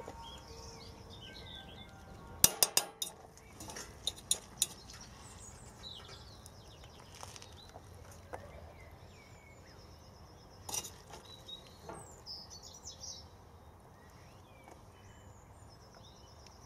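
Metal spaghetti server clinking against a stainless steel pot as pasta is lifted out and served, with a quick cluster of sharp clinks about two and a half seconds in and a few more scattered later. Small birds chirp in the background throughout.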